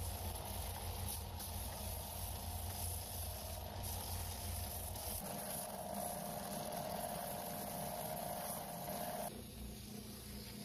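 Oscillating belt and spindle sander running as a solid maple board is sanded against its belt: a steady machine hum with wood being ground. The sound changes abruptly about five seconds in, and again near nine seconds, when the board is worked on the spinning sanding drum instead.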